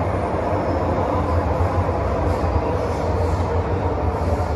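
Metro-Cammell M-Train electric multiple unit heard from inside the carriage while it runs along the line: a steady low rumble and running noise of wheels on rail with a constant low hum.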